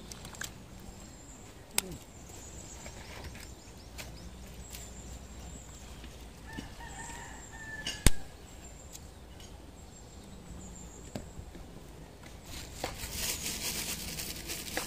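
Open wood fire crackling under a steaming wok, with a sharp pop about two seconds in and a louder one about eight seconds in. A rooster crows, and a hiss rises near the end.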